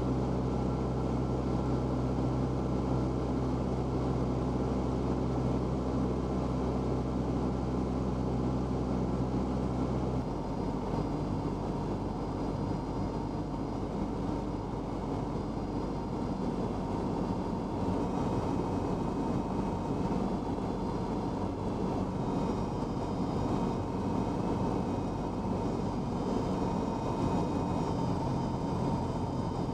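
Cabin sound of a 1978 Cessna 172: the four-cylinder Lycoming engine and propeller run steadily, then the engine tone drops away about ten seconds in as power comes back for the landing approach, leaving mostly a rushing airflow hum. A faint high whistle comes and goes in the second half.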